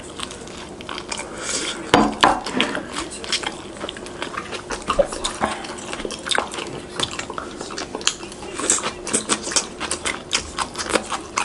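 Chopsticks and utensils clicking and tapping against plates and takeaway containers, many small irregular clinks.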